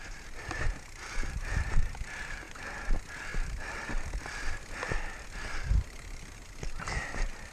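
Mountain bike freewheel hub ratcheting as the bike coasts, with knocks and rattles of the bike over rough ground.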